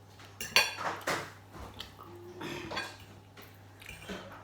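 Eating utensils clinking and scraping against a dish, with several sharp clinks about half a second to a second in and lighter knocks after.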